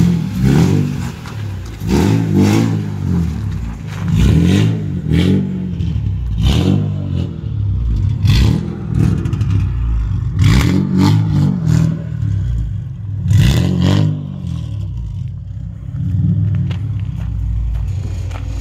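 Ford AU Falcon's engine run loud, blipped in about seven short revs that rise and fall as the car creeps up a driveway, with crackling and scraping bursts on each rev.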